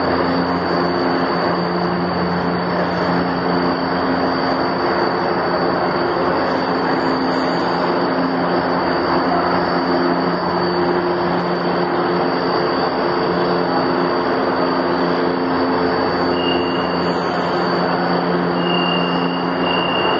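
Metro train standing at an underground station platform: a steady, loud mechanical drone with a low hum of several tones, unchanged throughout. A faint high tone joins near the end.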